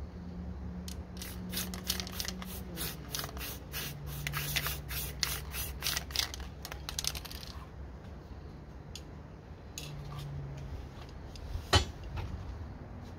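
Aerosol spray paint can sprayed in a quick run of short hissing bursts for several seconds, then a couple of single puffs. A sharp knock comes near the end.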